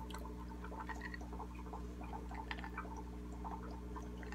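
Aquarium air pump (bubble machine) humming steadily, with water bubbling and dripping in the tank as small scattered ticks.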